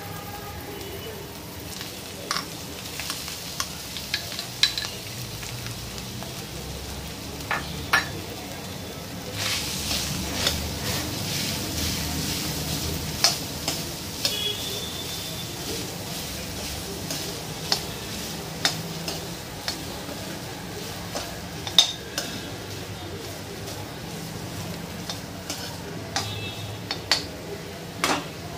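A steel spoon stirs and scrapes potato pieces with peanuts and curry leaves in a steel kadhai, clinking sharply and irregularly against the pan. Under the clinks there is a low, steady sizzle of frying, which grows louder for a few seconds about ten seconds in.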